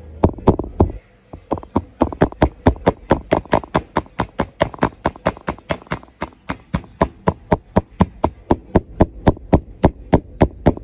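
Rapid, steady light hammer taps, about four a second, with a short pause about a second in: a small blue-faced hammer tapping the outer case of a CYC X1 Pro Gen 2 mid-drive e-bike motor, seating the case down onto its bearing.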